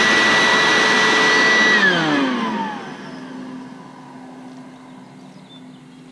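Electric leaf blower running flat out with a high steady whine as it blows a fidget spinner up to speed, then switched off about two seconds in, its pitch falling away as the motor winds down. A faint low hum is left afterwards.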